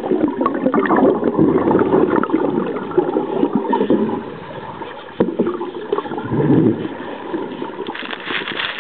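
Water rushing and bubbles gurgling, heard underwater through a camera housing, swelling and fading unevenly. There is a sharp knock a little after five seconds in, and a crackle of bubbles near the end.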